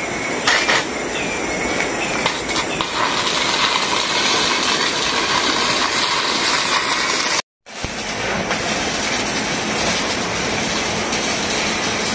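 Steady crackling hiss of stick welding on a steel post overhead. It breaks off suddenly for a moment about seven and a half seconds in, then carries on.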